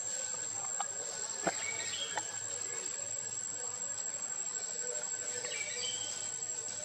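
Insects droning in one steady high note over a forest hiss, with three sharp clicks in the first couple of seconds and a few brief chirps.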